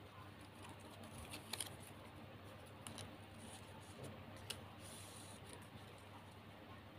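Faint crinkling and clicking of shiny plastic gift ribbon being folded and tucked by hand, with a few sharp ticks, the loudest about one and a half seconds in, over a low steady hum.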